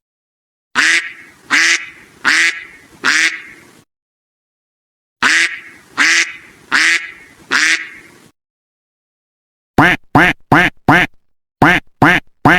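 Duck quacking, edited as a sound effect with dead silence between the clips: two series of four harsh, evenly spaced quacks, then a quick run of about seven short quacks near the end.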